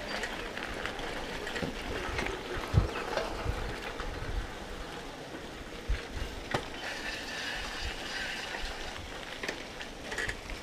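Riding noise from a bike on the move: a steady rattling noise with scattered clicks and a few heavy thumps, the loudest about three seconds in.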